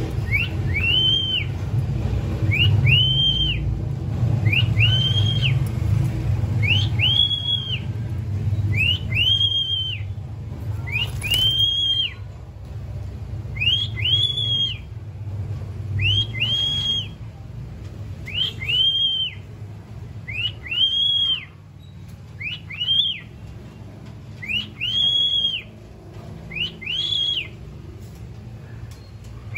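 Cockatiel whistling the same short note over and over, rising and then falling, about once every two seconds, over a low rumble that fades about halfway through.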